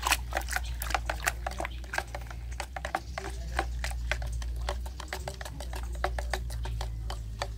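A stirring stick clicking and knocking against the sides of a plastic bucket as soapy water is stirred, several irregular clicks a second, over a steady low hum.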